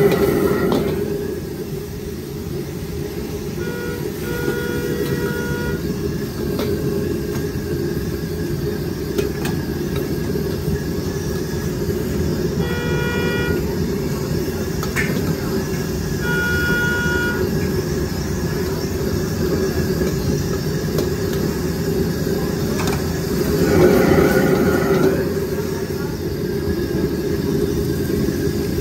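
Steady roar of a high-output gas wok burner under a stir-fry wok, swelling louder just at the start and again briefly about 24 seconds in. Three short tooting tones sound over it, about 4, 13 and 17 seconds in.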